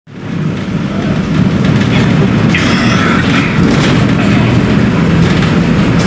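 Volkswagen 17.230 OD Euro V bus engine running with a steady low rumble that fades in at the start. A higher sound rises and falls over it for about a second, around halfway through.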